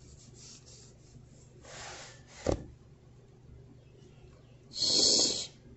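Handling noise from plush puppets and a hand moving close to the phone's microphone: a soft rustle about two seconds in, a sharp click half a second later, and a louder scraping rub near the end.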